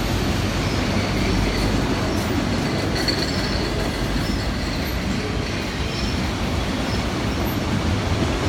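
Long CN freight train's cars rolling past, a steady rumble of steel wheels on rail with a few faint, brief high squeals.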